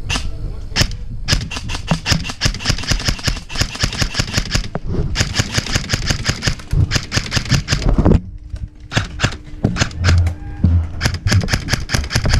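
Airsoft electric gun firing rapid full-auto bursts: two long bursts of about three seconds each, then shorter bursts and scattered shots.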